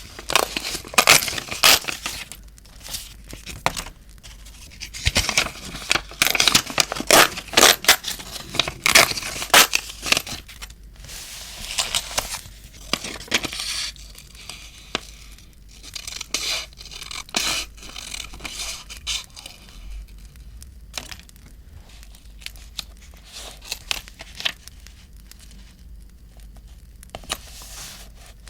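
Paper being torn and rustled by hand in quick noisy strokes. They come thick and loud in the first half and grow sparser and quieter later.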